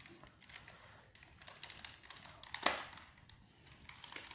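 Plastic clicks and light rattling of an MP 900 spring airsoft pistol being taken apart by hand, with one sharper, louder click a little past halfway.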